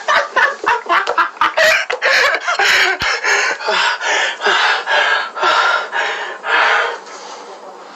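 Loud, rapid clucking squawks, one every few tenths of a second, with a sharp knock about three seconds in; they stop about seven seconds in.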